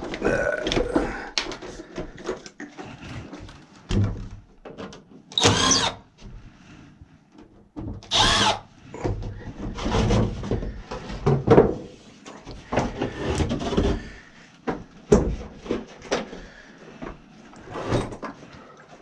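A power drill running in two short bursts, about five and eight seconds in, amid irregular clatter and knocks of tools being handled.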